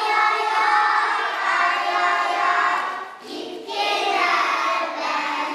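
A group of young children singing together, with a short break about three seconds in before the singing picks up again.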